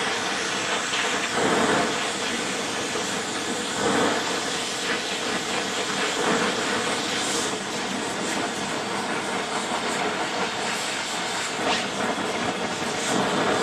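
Oxy-acetylene torch fitted with a cutting head, its flame hissing steadily while it heats a steel part to brazing temperature.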